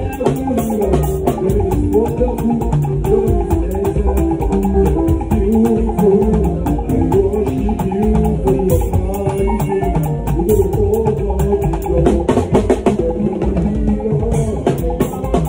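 Live Nigerian alujo band music: a drum kit played with sticks in fast, dense patterns on the snare and a small tom, over a pitched line that bends up and down.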